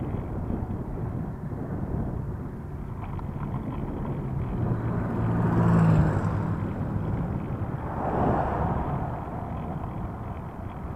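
Two motor vehicles passing close by on the highway over a steady rumble of wind and road noise. The first, about halfway through, is the loudest and carries a low engine hum; the second follows about two seconds later.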